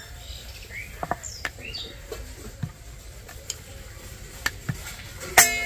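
Light knocks and rolling of a wooden rolling pin on a stone rolling board as a ball of dough is rolled out. Birds chirp in the background, with a short rising chirp or two early on and a louder pitched call near the end.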